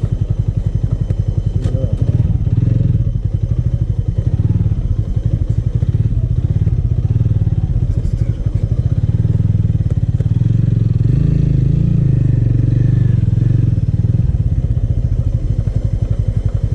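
Motorcycle engine running steadily at low revs on a rough trail, chugging evenly with small rises and falls in level.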